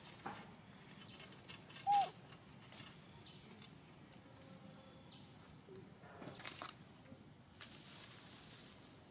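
One short squeak that rises and falls in pitch, about two seconds in, from an animal, over a faint outdoor background with scattered soft clicks and rustles.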